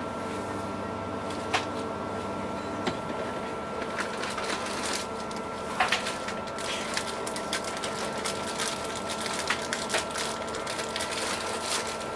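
Steady drone of an express passenger boat's engines, with irregular light clicks and taps that come more often from about halfway through.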